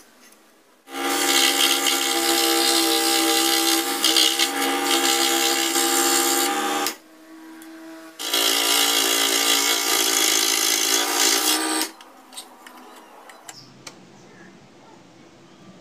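Electric scroll saw running and cutting thin wood, in two stretches of about six and about three and a half seconds with a short pause between, then a faint quiet stretch.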